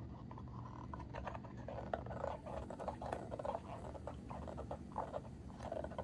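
Pomchi (Pomeranian–Chihuahua mix) gnawing a rubber chew toy: irregular chewing clicks and squishes, starting about a second in, over a steady low hum.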